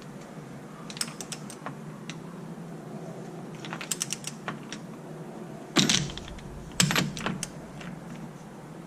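Scattered light clicks and clinks from hand tools and metal parts being handled, with two louder knocks about six and seven seconds in.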